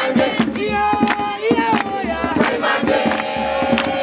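A group of young voices singing a chanted song together, with sharp rhythmic beats about two to three times a second.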